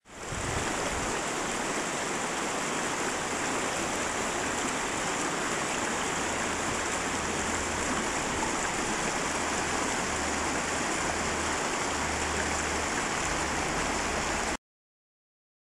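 A shallow, rocky river rushing over stones and small rapids: a steady rush of water that fades in at the start and cuts off suddenly near the end.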